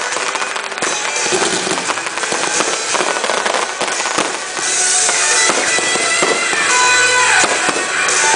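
Fireworks bursting and crackling in a rapid run of sharp pops, over music that grows louder from about halfway through.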